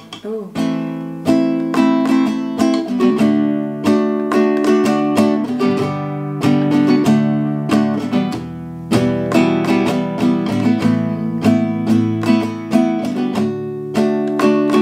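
Classical acoustic guitar played in a steady rhythm of plucked and strummed chords, working through the chorus of a song.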